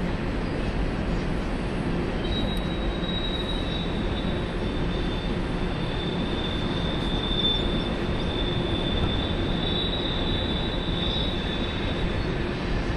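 Freight train rolling past with a steady rumble of wheels on rail; about two seconds in a high, steady wheel squeal starts and holds until near the end.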